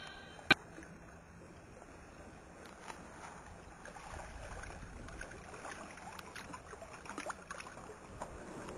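Quiet water sounds: a soft, even wash with scattered small ticks. One sharp click about half a second in is the loudest sound.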